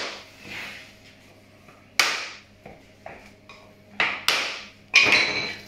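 Hammer blows on a metal bar held against the edge of three-layer oak parquet boards, knocking them tight together. There is one sharp knock about two seconds in, then three more in quick succession about two seconds later, the last one ringing briefly.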